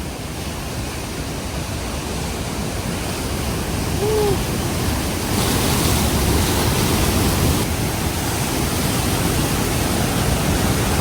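Close-up roar of Niagara Falls, a steady rush of falling water and spray, growing louder and hissier for a couple of seconds from about five seconds in.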